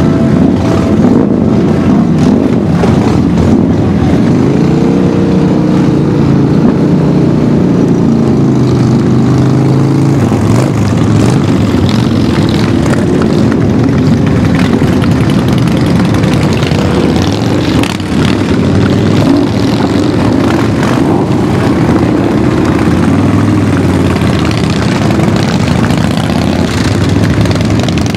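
A group of motorcycles riding off together, their engines running and revving in a loud, continuous mass, with rising and falling pitch as throttles open and close.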